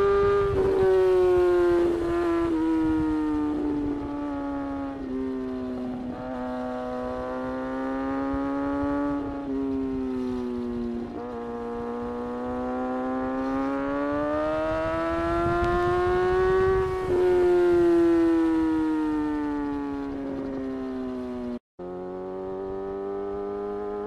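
Kawasaki ZX-6R's inline-four engine running under way, its note dropping over the first few seconds, climbing slowly to a peak, then falling again and settling lower, with several short breaks in the note along the way. The sound cuts out completely for an instant about three-quarters of the way through.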